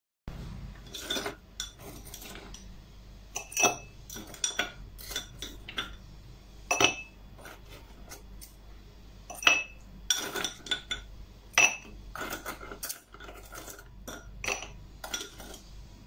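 Metal tongs clinking against a glass pitcher and a tall drinking glass as lemon pieces and mint are moved from one to the other: a string of irregular sharp clinks, several ringing briefly, the loudest about four seconds apart.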